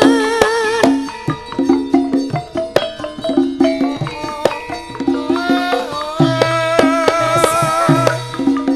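Live Javanese gamelan music accompanying tayub dancing: steady hand-drum (kendang) strokes drive the rhythm, with a wavering sustained melody above.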